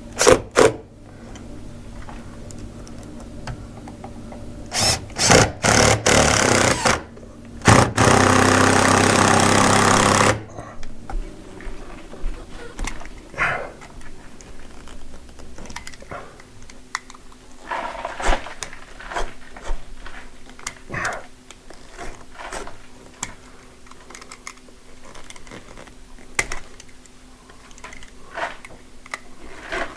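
Power drill running in short bursts, then a steady run of about two and a half seconds. After that, scattered light clicks and knocks of tools and parts being handled.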